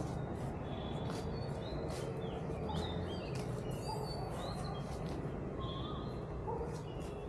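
Footsteps crunching on dry fallen leaves, with small birds chirping and giving quick whistles, over a steady low rumble.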